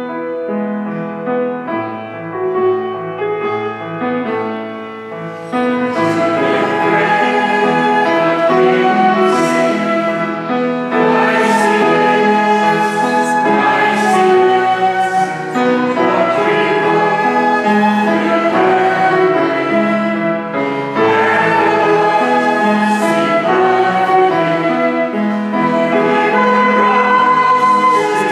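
A hymn played on piano, flute and acoustic guitar, with voices singing; the music grows fuller and louder about six seconds in.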